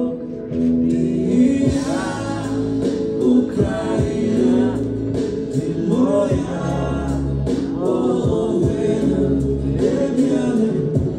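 A young man singing a song into a handheld microphone over an instrumental backing, with sustained chords and a steady bass line under the melody.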